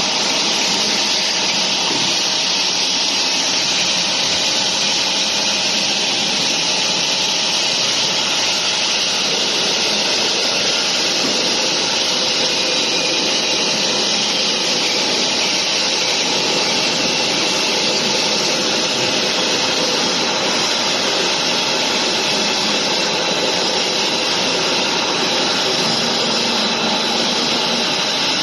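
Plastic injection moulding machine running: a loud, steady, even mechanical noise with a faint high whine, unchanged throughout.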